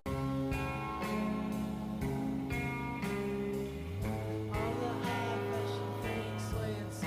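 Music: a song with guitar and singing, with a steady beat.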